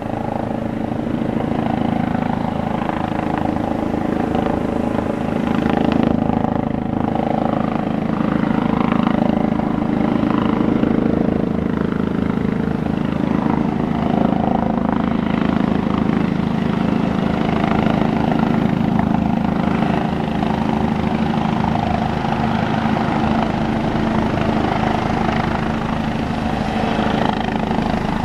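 Airbus EC145 medical helicopter flying in on its approach to land: a steady rotor beat under the hum of its turbine engines, swelling slightly a few seconds in.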